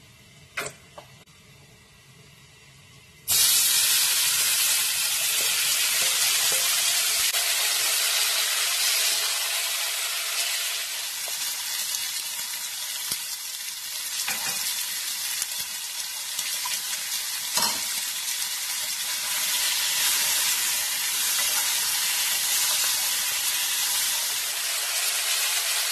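After a few quiet seconds, spicy marinated pork (jeyuk-bokkeum) starts sizzling suddenly and loudly in a hot nonstick wok. It keeps up an even frying hiss while being stirred with a wooden spatula, with a few light knocks against the pan.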